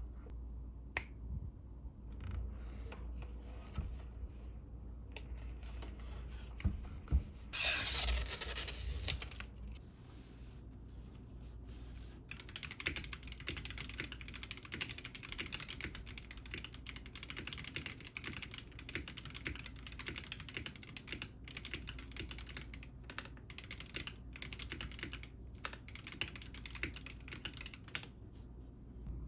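Melgeek MADE68 magnetic-switch mechanical keyboard being typed on: a run of short key clicks that becomes dense, fast typing from about twelve seconds in. A brief louder rushing noise comes about eight seconds in.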